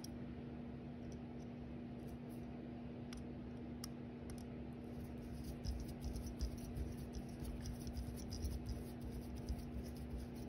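Faint scraping and small clicks of a flathead screwdriver tip working against the steel parts inside a revolver frame, growing busier about halfway through, over a steady low hum.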